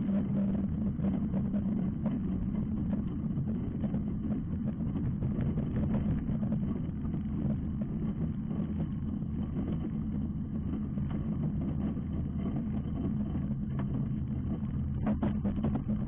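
Ultralight trike's engine and propeller running steadily at low power on the ground, a constant drone, with a few brief rattles near the end.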